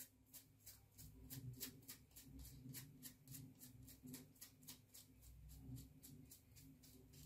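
Faint crackling of a Bic Flex 5 Hybrid five-blade cartridge razor scraping through a week's stubble in short, quick strokes, about four or five a second.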